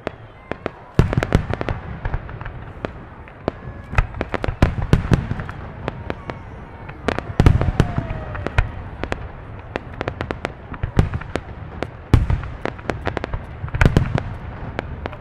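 Fireworks show: a rapid run of sharp crackling reports, broken by heavier deep booms of aerial shells about a second in and several more times after.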